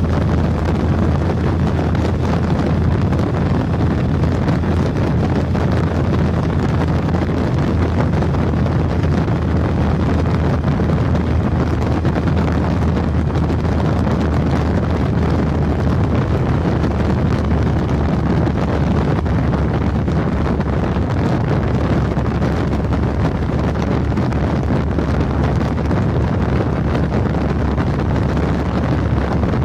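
Steady rush of wind on the microphone of a handlebar-mounted camera on a Triumph Tiger 1050 at Autobahn speed, over the low, even drone of the bike's three-cylinder engine.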